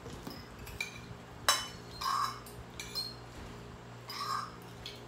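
Metal spoons and forks clinking and scraping on ceramic plates during a meal: scattered light clinks, with one sharp ringing clink about a second and a half in.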